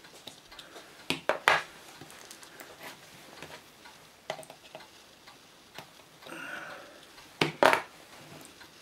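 Sharp metallic clicks and clinks of a stainless steel Ruger Old Army revolver being handled as its base pin latch is turned to free the cylinder pin for removal. A cluster of clicks comes about a second in, another around four seconds, and a louder pair near the end.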